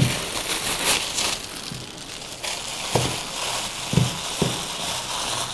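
A thin plastic food-prep glove crinkles as it is pulled on, then a gloved hand squashes and kneads a sticky mix of ground bread and melted chocolate in a stainless steel bowl. A few dull knocks come in the second half.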